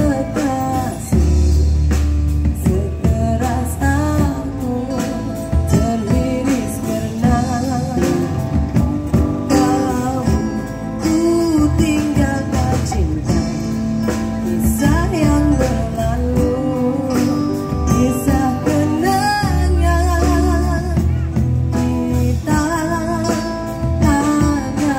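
Amplified live band playing: a woman sings with a wavering vibrato over electric and acoustic guitars, bass and a drum kit.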